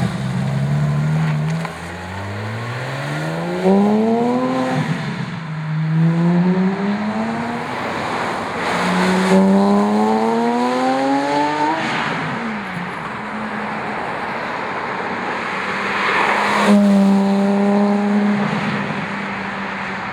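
Porsche 997.2 GT3 RS flat-six through Fabspeed sport headers, HJS sport cats and Mini-Maxflo center mufflers, driving by. It accelerates in three pulls with the pitch climbing, then holds a steady note with a brief surge near the end.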